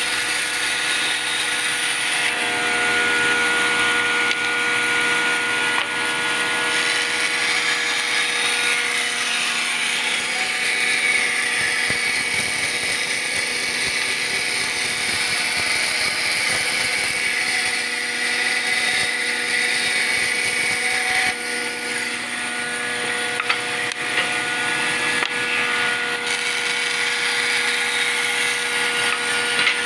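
Band saw running steadily with a constant hum as its blade cuts a curved line through a board.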